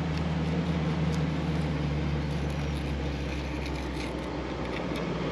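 Steady low hum of a running machine, even throughout, with a few faint ticks.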